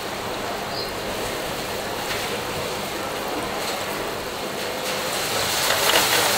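Steady bubbling and rushing of water in a heavily aerated seafood display tank. Near the end it gets louder and more splashy as a gloved hand reaches into the water.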